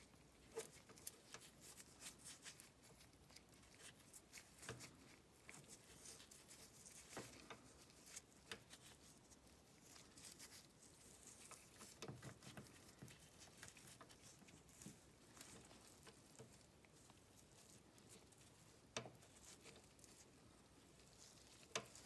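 Faint scattered clicks and scratching of an Allen wrench and drain plug against the snowmobile's chaincase as the plug is worked by hand into its threaded hole. A couple of sharper clicks stand out near the end.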